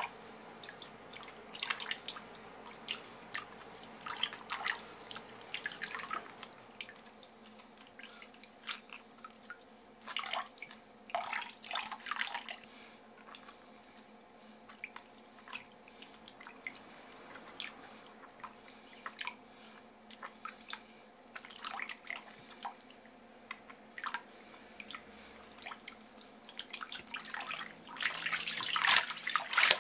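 Thin stream of tap water running into a stainless steel bowl while hands swish and rub pieces of pufferfish skin in the water, with irregular splashes and sloshes. The splashing grows louder and busier near the end.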